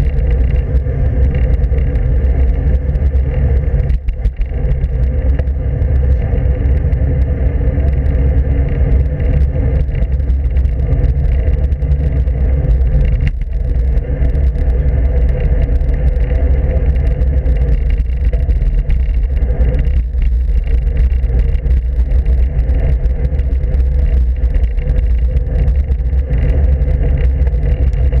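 Wind buffeting the microphone of a handlebar-mounted camera on a road bike in motion: a loud, steady low rumble that barely changes.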